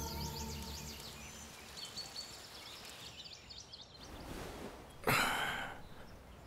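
Small birds chirping in quiet dawn ambience as music fades out, then a short breathy whoosh about five seconds in.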